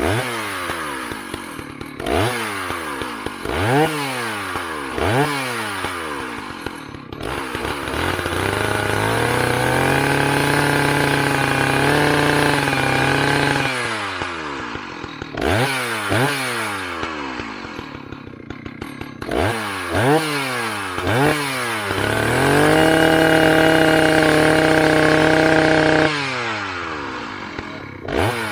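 Antique two-stroke chainsaw revved up and down repeatedly in quick blips, then held at full throttle for several seconds; this happens twice, with the second hold near the end.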